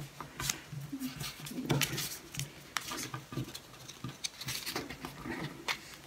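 Origami paper rustling and crinkling as it is folded and pressed flat by hand against a wooden tabletop: an irregular scatter of small dry scratches and taps.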